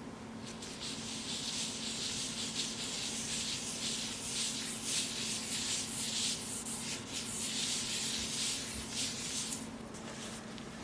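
Wood being sanded by hand in quick back-and-forth strokes, a rasping hiss that stops near the end.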